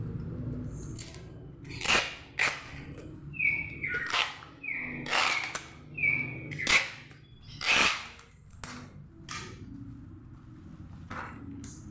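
Packing tape being pulled off the roll in a series of short rips, a few with a brief squeal, as a parcel is taped up.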